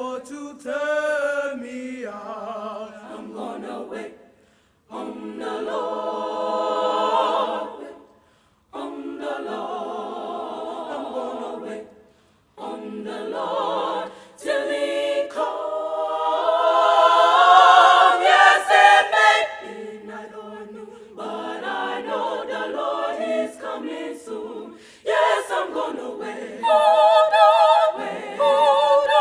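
Young women's choir singing a cappella, in phrases broken by three short pauses in the first half, then swelling to its loudest a little past the middle.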